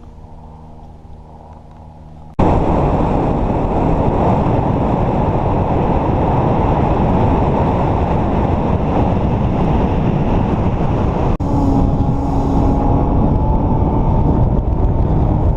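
Motorboat under way: a low steady engine hum, then from about two seconds in a sudden, loud, steady rush of wind on the microphone over the running motor.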